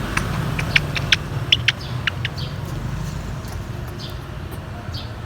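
African grey parrot making a quick run of sharp clicks, then a few faint short chirps, over a steady low hum.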